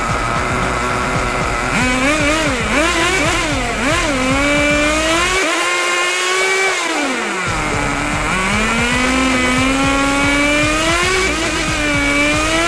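HSP nitro RC buggy's small glow-fuel engine running with the wheels off the ground, revved up and down again and again as the throttle is blipped, the pitch climbing and falling with each blip, held high for a couple of seconds midway. The engine is being run during carburettor tuning, its air and fuel being adjusted.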